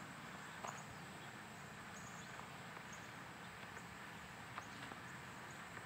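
Faint outdoor background noise with a few soft, light ticks scattered through it.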